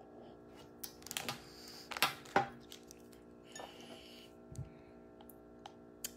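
Handling noise of a phone and vape pen: a scatter of sharp clicks and knocks, the loudest two about two seconds in, with soft rustling between them, over a faint steady hum.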